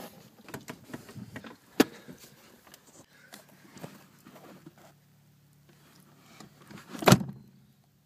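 A VW Golf MK4 front seat being slid along its floor runners and its bolts guided into place: scattered metal and plastic clicks and scrapes, a sharp click about two seconds in and a loud clunk near the end.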